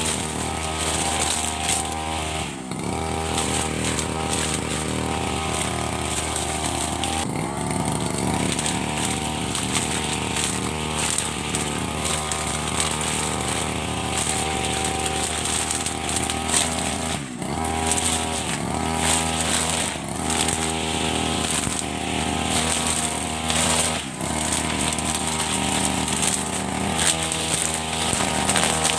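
Petrol-engine brush cutter with a nylon trimmer-line head running at cutting speed through grass and weeds. The engine note dips briefly about four times and picks up again.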